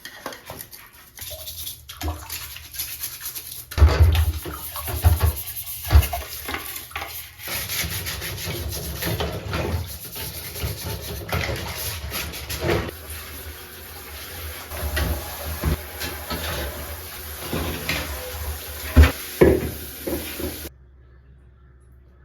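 Household cleaning: scrubbing and rubbing with water running and splashing, broken by a few sharp knocks. The sound cuts off suddenly near the end.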